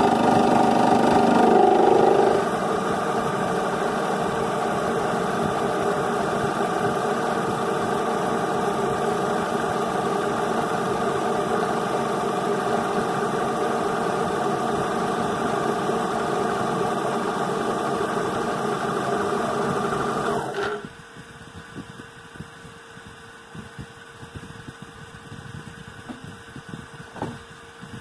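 Hobby CNC mill's spindle running, with the end mill cutting into a metal block for about the first two seconds, then running steadily without the cut. About 21 seconds in the spindle shuts off abruptly, leaving a faint steady hum from the machine and a single click near the end.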